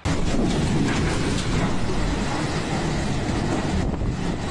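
Typhoon wind and rain: a steady, loud rush of noise, heavy in the low end, with wind buffeting the microphone. It starts suddenly.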